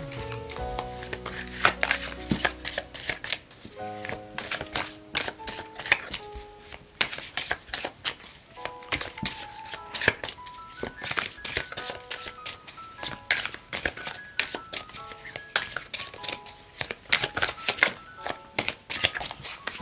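A deck of tarot cards being shuffled by hand, giving many quick, irregular clicks of card against card, over gentle background music with a slow melody.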